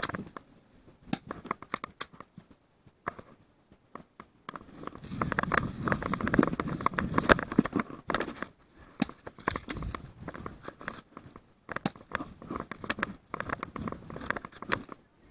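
Airsoft guns firing: rapid sharp clicking shots in bursts, densest and loudest from about four and a half to eight seconds in.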